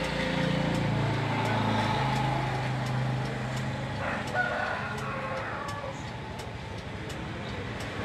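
Low steady hum of an idling vehicle engine, with a rooster crowing briefly about four seconds in.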